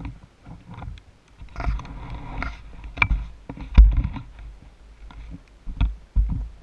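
Handling noise on a helmet-mounted action camera as the helmet is taken off and turned over: irregular knocks, bumps and rubbing, the loudest thump about four seconds in.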